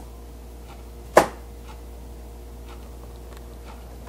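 A pet crab's claws picking at an acorn: faint scattered clicks on the shell, with one sharp, much louder click about a second in.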